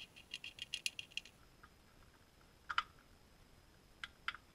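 Faint, light metallic clicks from a new drain plug and washer being fitted to the oil pan: a quick run of clicks for about a second and a half, then a few single clicks.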